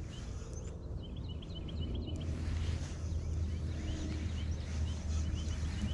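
A bird calling in quick runs of short, high chirps, about a second in and again near the end, over a low steady hum.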